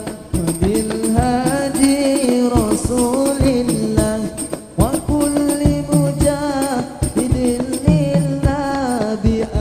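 Islamic shalawat sung with a wavering, ornamented melody over a steady beat of frame drums with jingles.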